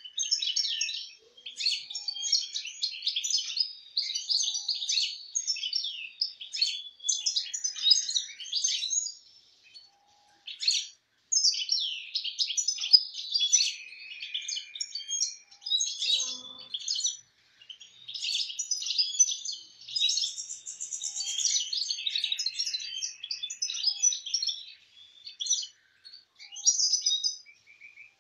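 Caged European goldfinches singing: bursts of rapid, high chirping and twittering song, broken by short pauses about ten and seventeen seconds in.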